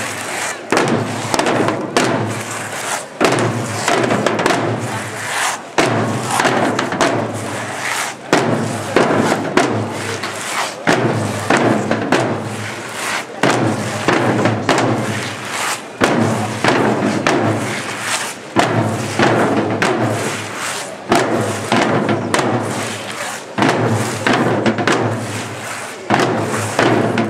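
Marching field drums of a procession's drum corps, beaten with sticks in a steady, repeating rhythm.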